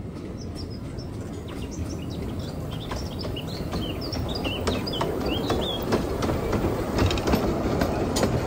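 A 15-inch-gauge steam locomotive hauling open passenger carriages approaches and runs past, its low rumble growing steadily louder. From about two-thirds of the way in, the carriage wheels click over the track as the train goes by, while birds chirp through the first part.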